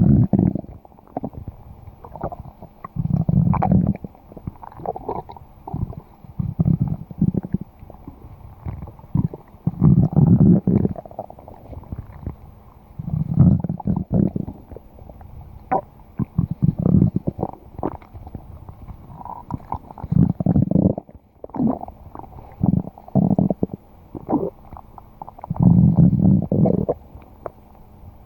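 Stomach growling: a string of low growls, each lasting about a second, coming every two to three seconds.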